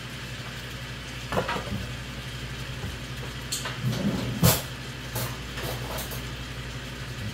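Kitchen utensils clinking and knocking a few times, as a spoon and containers are handled for ginger-garlic paste, over a steady low hum. The loudest knock comes about four and a half seconds in.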